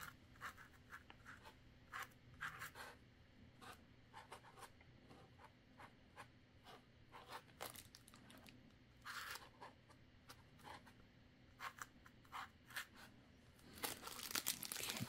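Faint scratchy strokes of a permanent marker writing on a styrofoam packing insert, in short scattered runs. Near the end, plastic wrap crinkles as the insert is handled.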